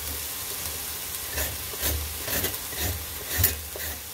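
Ground pork and onions sizzling in a frying pan, with short scraping strokes about every half second as a knife peels the ridged skin off a luffa squash.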